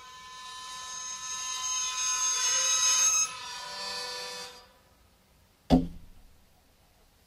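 Metal objects scraped against each other or against strings, giving a high ringing sound that swells for about three seconds, drops suddenly and dies away. Then, near the end, one sharp knock with a low thud, the loudest moment.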